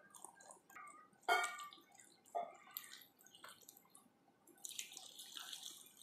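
Water poured from a plastic cup splashing and dripping onto raw green chillies in a pan: scattered faint splashes and drips, turning into a steadier trickle near the end.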